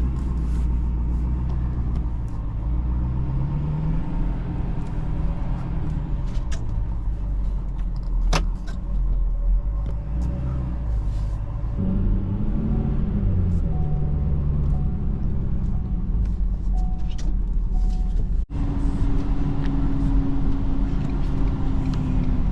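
Ford F-550 work truck's engine running as it drives, its pitch rising and falling twice with the throttle over a steady low rumble. There is a single sharp click about eight seconds in and a brief cut-out of all sound near the end.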